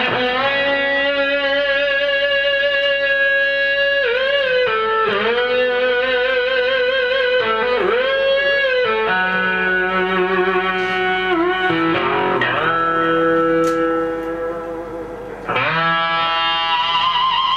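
Electric guitar with a Fernandes Sustainer, played through a Marshall JMP-1 preamp: long held notes that do not die away, with wide vibrato, bends and a few quick dips in pitch. Near the end the sound fades briefly before a new note comes in.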